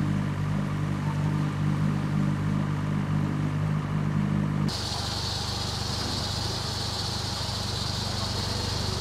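Engine running with a steady low hum; about five seconds in it cuts off suddenly and is replaced by a different engine idling under a steady hiss.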